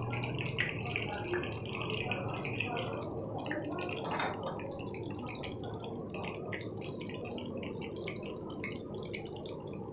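Chicken seekh kababs shallow-frying in hot oil in a frying pan: a steady sizzle of fine crackles.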